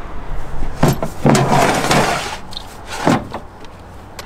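Gear being handled in a brush truck's equipment compartment: a sharp knock, a second-long sliding scrape, then another knock, as of a compartment door or stowed hose being moved.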